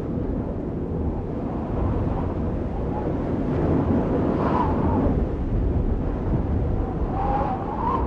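A steady, low, wind-like rumbling noise that swells slightly, with faint wavering tones above it at times.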